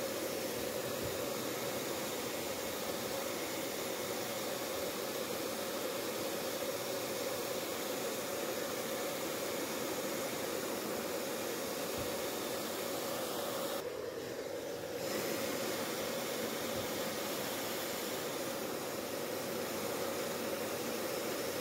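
Heat gun blowing a steady stream of hot air onto a phone's back panel to soften its adhesive before prying: a continuous rushing hiss. The hiss thins briefly about two-thirds of the way through.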